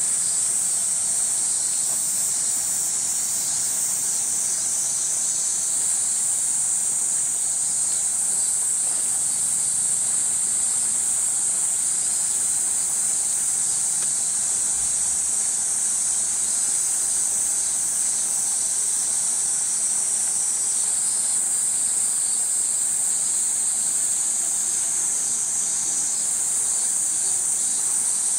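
A summer cicada chorus: a loud, steady, high-pitched drone that holds without a break.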